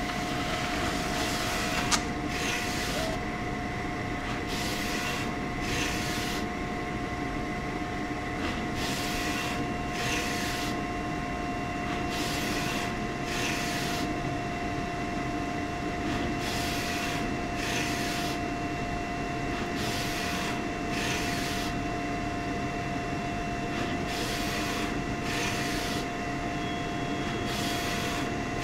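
HP Designjet 815mfp wide-format inkjet printer printing: a steady motor and fan hum, with a rushing sound that comes and goes about every second or two as the print carriage passes across the sheet. A single sharp click about two seconds in.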